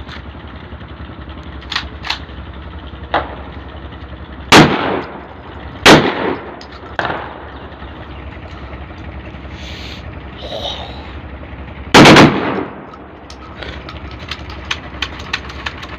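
A 12-bore shotgun being test-fired: three loud blasts, the first about four and a half seconds in, the second a second and a half later, and a longer third one about twelve seconds in. A few lighter sharp knocks come before and between the shots.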